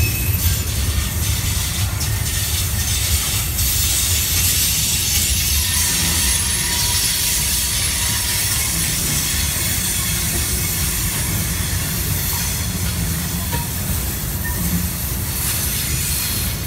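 Freight train rolling through a rail yard: a steady low rumble under a continuous hiss of wheels on rail, with a faint thin wheel squeal coming and going.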